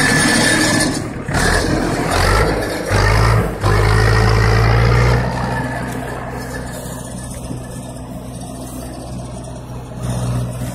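An HMT 7511 tractor's diesel engine running close by, loud for the first five seconds with a few brief dips. From about five seconds in it settles into a steadier, quieter drone as the tractor draws away.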